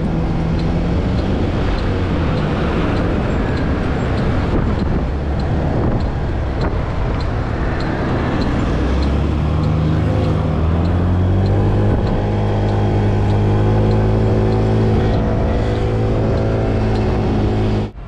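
Motor scooter engine running while riding at city speed, over a steady rush of noise. The engine pitch climbs as it speeds up about nine seconds in, then holds. A light tick repeats about twice a second through the first half.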